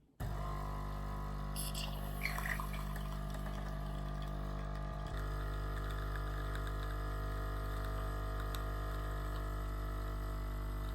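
illy Y3.2 capsule coffee machine brewing: its pump starts suddenly and hums steadily while coffee pours into the cup.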